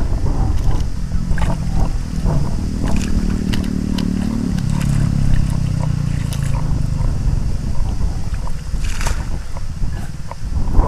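Wind buffeting the microphone, a steady low rumble, with scattered small clicks and a short hiss about nine seconds in.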